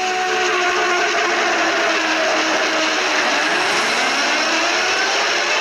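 Ocean-wave sound effect in a homemade emergency-alert-style alarm: a loud, steady rushing noise like surf, with faint steady tones and a few sliding pitches beneath it in the middle.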